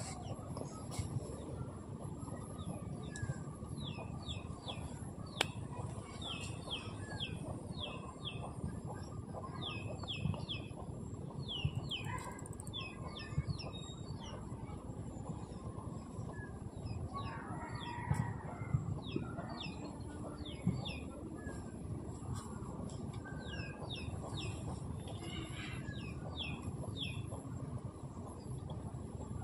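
Small bird chirping again and again, short high notes that sweep downward, in quick runs of two to four, over a steady low background noise.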